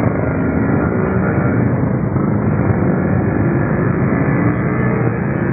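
Motorbike traffic passing on a wet road, engines running with a steady, loud wash of noise.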